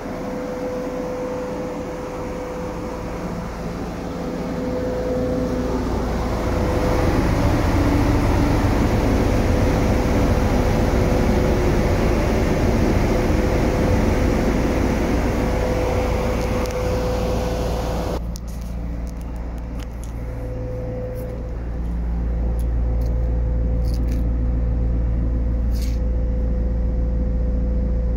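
Steady drone of idling machinery with a constant hum tone and a low rumble, growing louder through the middle. The hiss drops away suddenly about two-thirds of the way through, and a few light clicks follow.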